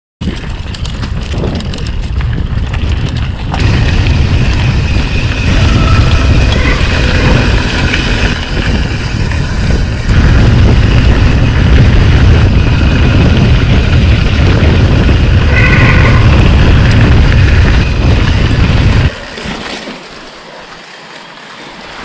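Heavy wind buffeting on the camera microphone mixed with the rumble and rattle of a mountain bike riding fast over a gravel dirt track. The noise drops sharply about nineteen seconds in as the bike slows almost to a stop.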